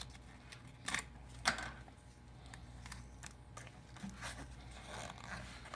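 A business card scraping and clicking as it is slid under a phone's display to cut through the adhesive: a few short scrapes, the sharpest about a second and a half in.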